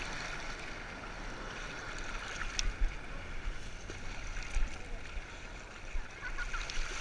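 Sea water sloshing and lapping at water level in shallow surf, with a few small splashes.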